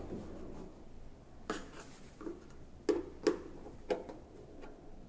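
A few short, sharp clicks, four spread over about two and a half seconds, as buttons on the Bosch dishwasher's control panel on the top edge of the door are pressed after power-up.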